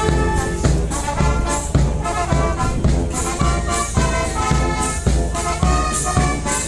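Background music with a steady beat and brass instruments, in a big-band swing style.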